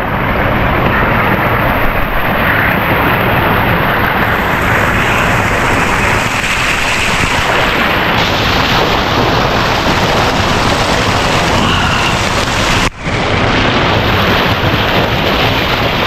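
Water from a pool's water-feature spout pouring onto a swimmer's head and splashing right onto the microphone, a loud steady rush of falling and splashing water. There is a brief drop-out about 13 seconds in.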